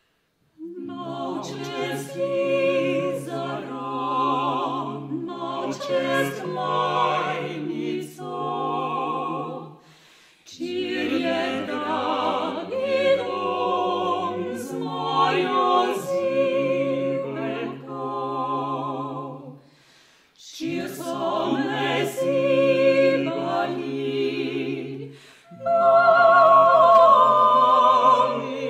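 Three women's classical voices singing together in an operatic style, with wavering held notes. They sing in three long phrases, with short breaks about ten and twenty seconds in, and are loudest near the end.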